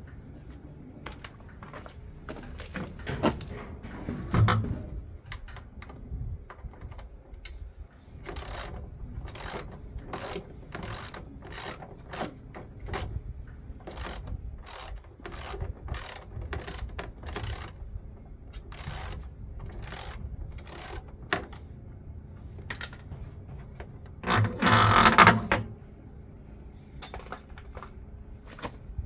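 Repeated metallic clicks and knocks of hand-tool work on washing machine parts, coming every half second or so for a long stretch, with a louder, longer rattle about 24 seconds in.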